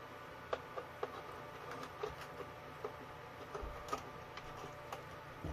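Faint, scattered light clicks and taps of small plastic and metal parts being handled: the body and front bumper of a scale RC crawler being fitted by hand.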